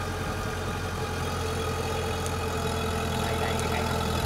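Kubota DC-105X combine harvester's diesel engine running steadily and building slightly in level as the machine, bogged in deep mud, works to drive itself out on its tracks.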